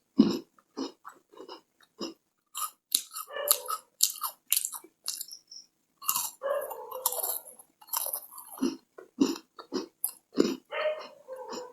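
Close-miked biting and chewing of a crunchy chocolate-filled Dark Fantasy cookie: irregular sharp crunches with wet mouth sounds between them.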